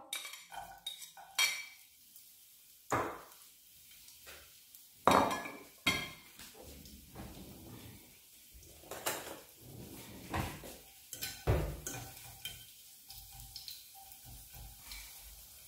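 A knife and a fork clinking and scraping against a plate and a nonstick frying pan as chopped garlic is pushed into olive oil and moved around, in irregular knocks and scrapes.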